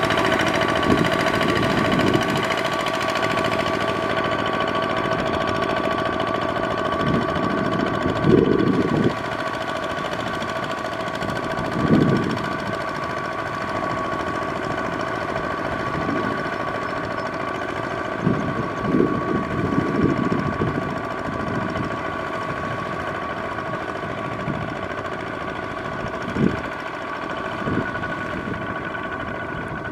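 Single-cylinder diesel engine of a walk-behind two-wheel tractor running steadily under load as its cage wheels churn through flooded paddy mud. The engine note holds a constant pitch, with several brief low surges scattered through.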